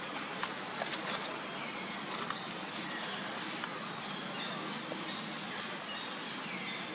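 Steady outdoor ambience with a few faint bird chirps. In the first second or so, light crackles of dry fallen leaves as a young long-tailed macaque moves over the leaf litter.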